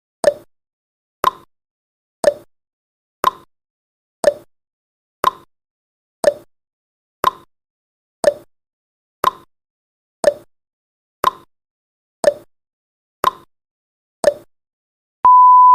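Countdown timer sound effect: a short tick once a second, about fifteen in a row, then a steady high beep starts near the end as the count reaches zero.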